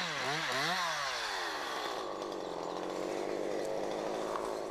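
Husqvarna two-stroke petrol chainsaw cutting into a felled tree trunk. The engine speed dips and picks up twice in the first second, then holds steady at high revs.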